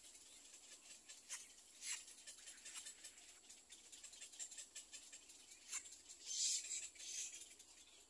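Little egret chicks moving in their twig nest: faint, scattered scratchy rustles and clicks, with a louder hissing rustle about six seconds in.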